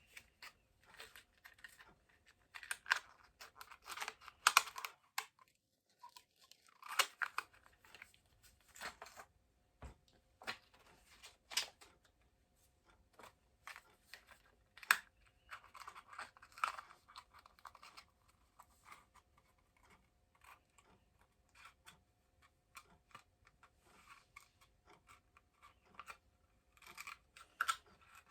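Hands handling a plastic concert glowstick: scattered clicks, taps and short bursts of rustling, with a faint steady hum underneath.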